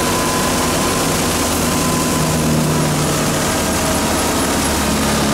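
BATALA wheat thresher threshing wheat, driven through a PTO shaft by a New Holland Fiat 480 diesel tractor: a steady, loud mechanical din of the spinning drum and the tractor engine, with a constant low hum and a thin whine.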